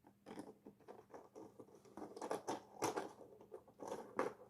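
Faint, irregular clicks and scratchy rustling of small 3D-printed plastic scales being handled and hooked together.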